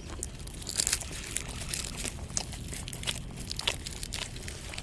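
Crisp fried bread being torn apart by hand and eaten: a run of short sharp crackles and crunches, thickest about a second in.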